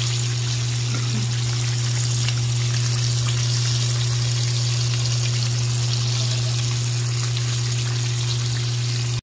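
Flour-coated fish pieces deep-frying in a pan of hot oil: a steady hiss of sizzling, bubbling oil. Under it runs a steady low hum.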